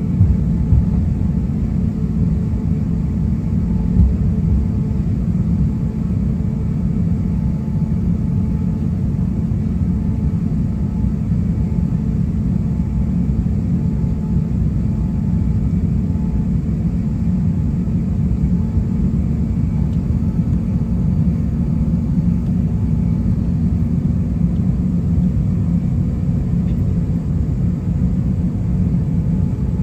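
Cabin noise of an Airbus A350-900 taxiing: a steady low rumble from its Rolls-Royce Trent XWB engines at taxi power and the rolling gear, with a faint steady hum. A couple of light bumps come near the start and about four seconds in.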